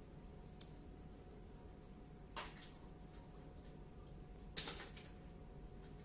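Faint handling noises from a small metal fingerprint padlock held in the hand: a small click, then two short rustling bursts, the loudest about four and a half seconds in.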